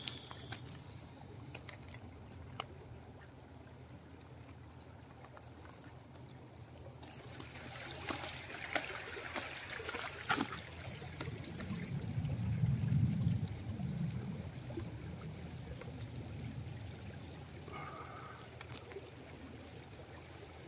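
Faint lakeside ambience: a soft trickling, water-like hiss with a low rumble that swells about twelve seconds in, and a few light clicks.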